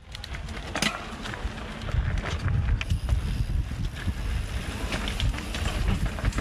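Wind buffeting the microphone of a camera on a mountain bike riding downhill, a gusty low rumble that grows heavier about two seconds in. Many short sharp ticks and rattles from the bike and its tyres on the dirt trail run through it.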